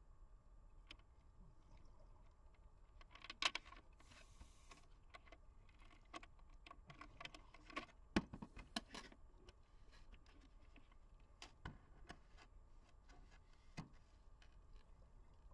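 Faint underwater recording: scattered sharp clicks and taps, the loudest about three and a half and eight seconds in, with a short hiss of a scuba diver's exhaled regulator bubbles about four seconds in.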